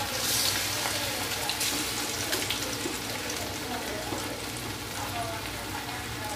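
Battered chilli chicken pieces deep-frying in hot oil in a kadai, a steady sizzle with fine crackling that flares briefly near the start as another piece is dropped in.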